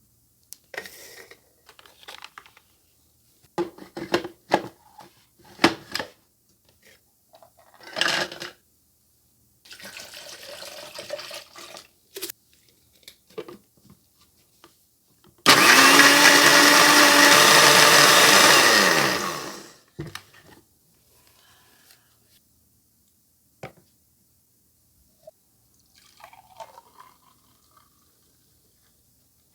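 A small electric motor appliance runs loudly for about four seconds, then winds down with falling pitch. Before it come scattered clicks, knocks and handling sounds.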